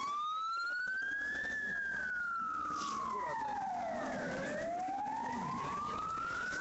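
Emergency vehicle siren in a slow wail: its pitch climbs for about a second and a half, sinks slowly for nearly three seconds, then climbs again near the end.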